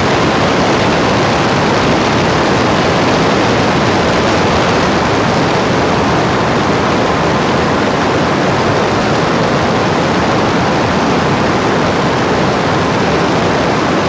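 Loud, steady rushing noise like static, even and unchanging, with no tone or rhythm in it.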